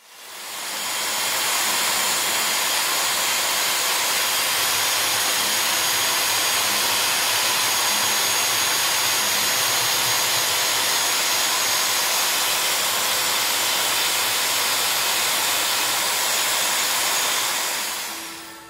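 Hand-held electric drill running steadily with a polishing bit against a resin sculpture, a continuous hissy whir. It fades in at the start and fades out just before the end.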